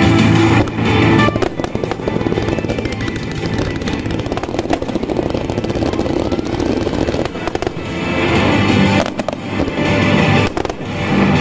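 Starmine fireworks barrage: a rapid, dense run of shell bursts and crackling, with music playing alongside that comes up strongest at the start and again near the end.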